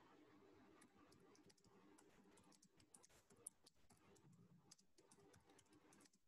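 Faint typing on a computer keyboard: a run of irregular keystrokes, with one sharper click about three and a half seconds in.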